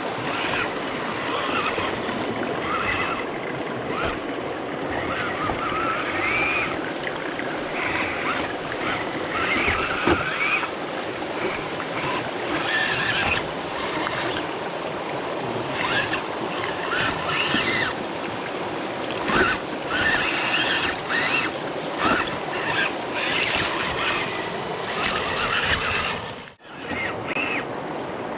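Flowing stream water rushing and splashing, with many short irregular splashes over a steady rush, as a small RC 4x4 truck churns through it. The sound drops out for a moment near the end.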